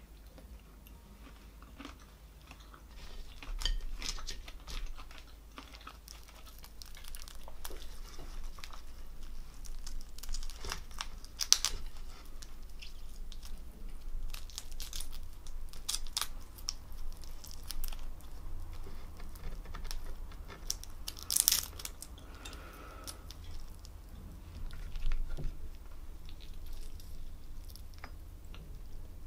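Boiled prawns being shelled by hand, the thin shells crackling and snapping in irregular bursts, mixed with close-up chewing.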